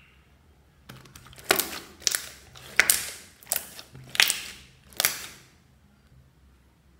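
Blue glitter slime being squeezed and pressed by hand, giving a run of about six loud squelching pops, roughly two-thirds of a second apart, that stop about five and a half seconds in.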